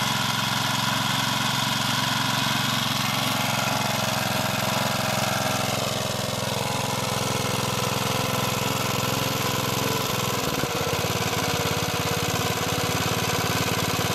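Freshly serviced Hayter Hayterette lawn mower's Briggs & Stratton 3.5 HP Classic single-cylinder petrol engine running steadily, its note shifting slightly about ten seconds in.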